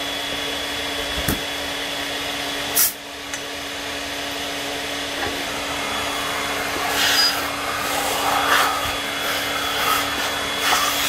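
Duct-cleaning vacuum running steadily, with air rushing through its flexible hose at a ceiling register cover. A sharp knock comes about three seconds in, and the suction sound dips, then slowly builds again. Scraping and rubbing of the plastic cover and hose follow in the second half.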